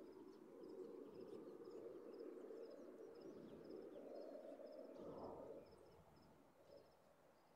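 Faint, steady cricket chirping: short high chirps of about three quick pulses each, repeated roughly twice a second. Under it runs a low background rush that drops away about six seconds in.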